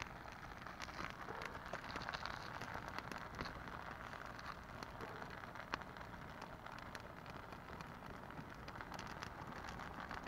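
Cream sauce simmering in a large pan on a portable gas stove, a faint dense crackle of many small pops.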